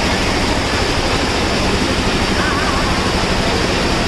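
Loud, steady rush of wind and road noise on the microphone of a moving motorbike.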